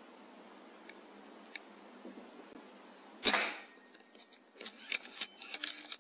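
A single shot from an Air Arms S510 Ultimate Sporter .177 pre-charged air rifle about three seconds in: one sharp crack with a short tail. About a second later comes a quick run of sharp clicks and rattles.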